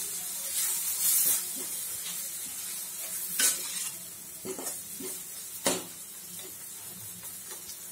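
Onion-tomato masala sizzling in a stainless steel kadai as a spatula stirs it, frying the chilli and coriander powder until the raw smell cooks off. The spatula scrapes and knocks against the pan a few times, loudest about three and a half and six seconds in, while the sizzle eases off after the first second or so.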